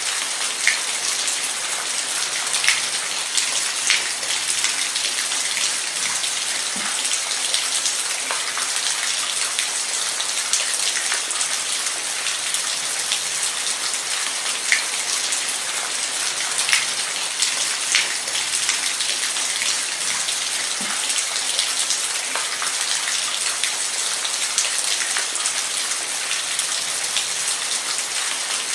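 Steady rain falling, a constant hiss with individual drops ticking sharply on a nearby surface every second or two.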